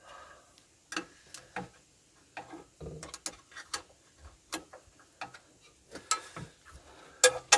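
Irregular clicks and knocks of hand tools and metal parts being handled during repair work, with a louder pair of knocks near the end.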